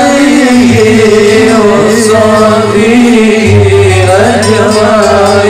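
A man's voice singing a sholawat refrain in long, ornamented notes that bend and waver, over steady instrumental accompaniment, heard through a microphone and loudspeakers.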